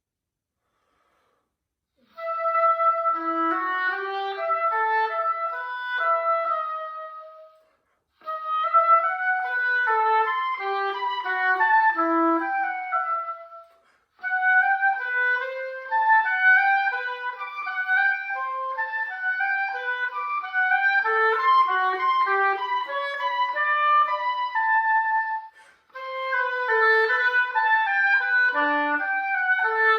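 Solo oboe playing a classical piece: quick runs of notes in a single line, in phrases broken by short pauses, starting about two seconds in.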